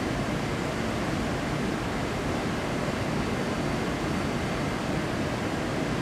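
Taipei Metro C381 train heard from inside the passenger car while running between stations: a steady, even running noise of wheels and motors.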